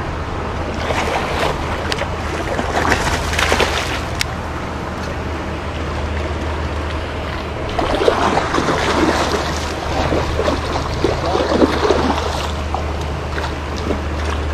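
A hooked siakap (barramundi) thrashing and splashing at the surface close to the bank, in spells, the longest from about eight seconds in, over a steady low rumble of wind on the microphone.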